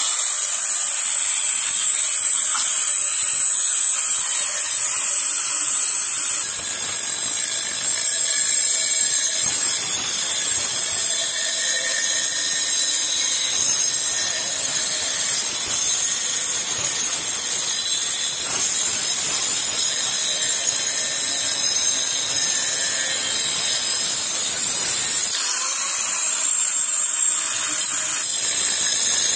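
Angle grinder fitted with a diamond cutting disc cutting a shaped cut through a steel pipe: a continuous high whine over a harsh grinding hiss. The tone changes about six seconds in, and again briefly near the end.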